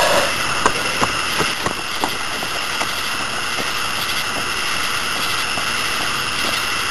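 Steady hiss of a low-quality camcorder recording, with a few faint clicks in the first couple of seconds.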